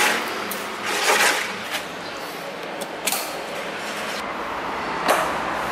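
Steady traffic noise from a busy road, with a few short clicks and knocks about a second in, near three seconds and again near five seconds.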